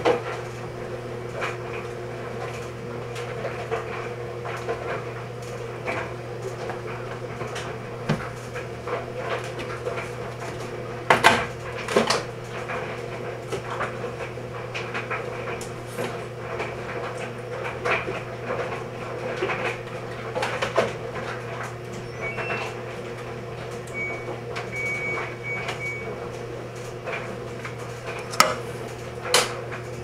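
A laundry machine running with a steady low hum, under a series of knocks and clatters: the loudest come about 11 and 12 seconds in and twice near the end.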